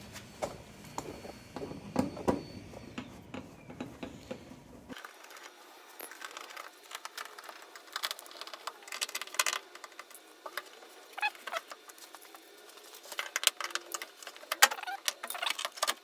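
Irregular light clicks, taps and jingles of hand tools and small metal parts being handled, busier in the last few seconds.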